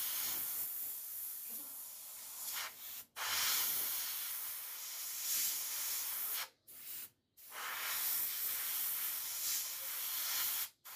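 Airbrush spraying paint with a steady high hiss of air, stopping abruptly for brief moments about three seconds in, for a little under a second past the halfway point, and again near the end as the trigger is released between passes. The airbrush is, by its owner's account, extremely dirty.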